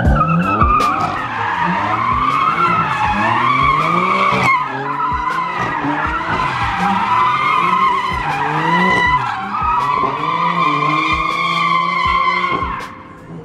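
BMW M4 doing donuts, its rear tyres squealing steadily at a high, wavering pitch while the engine revs climb again and again as the car is held in the slide. The squeal dies away near the end.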